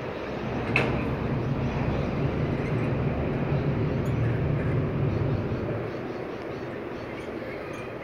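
Road traffic: a low rumble swells about a second in and fades away near six seconds, like a vehicle passing on the street below, with one sharp click near the start.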